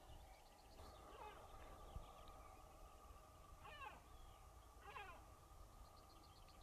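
Faint animal calls: three short wavering calls, the first about a second in and the others near four and five seconds in, with a faint rapid trill near the start and again near the end, over a faint steady tone.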